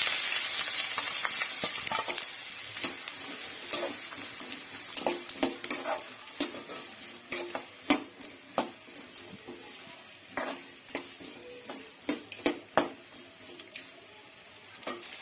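Chopped onions sizzling in hot oil in a kadai, loudest just as they go in and dying down gradually. A stirring utensil knocks and scrapes against the pan again and again.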